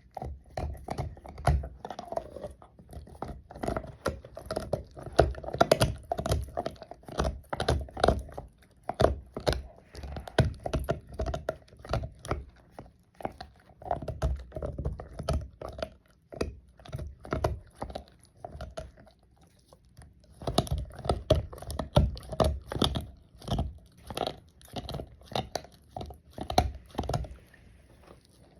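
Labrador retriever gnawing on a hard nylon Benebone chew toy: rapid, irregular clicking and scraping of teeth on the bone. The gnawing stops for a few seconds a little past the middle, then resumes.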